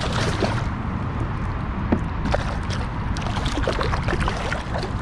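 Water splashing and trickling with scattered small splashes as a hooked bass is reeled in to the boat, over a steady low rumble.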